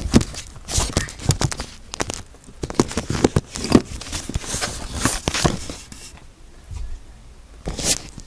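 Handling noises: a busy run of clicks, knocks and rustles for about six seconds, then a lull and one more short rustle near the end.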